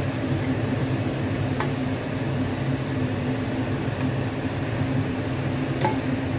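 A steady machine hum, a low drone with a few fixed tones, like a running fan or appliance motor. A faint click comes about a second and a half in and another near the end.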